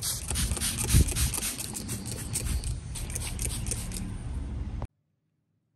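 Trigger spray bottle misting water in a rapid run of short hissing squirts, with a dull knock about a second in. The sound cuts off abruptly near the end.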